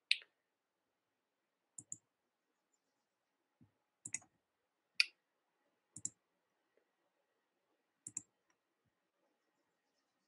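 Computer mouse clicking: about six short, sharp clicks, most heard as quick press-and-release pairs, spaced a second or two apart with quiet in between, as photo slides are advanced.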